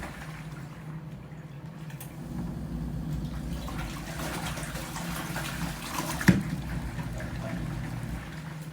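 Portable washing machine running on its wash cycle: the motor hums steadily while the agitator churns water and clothes. A single sharp knock about six seconds in.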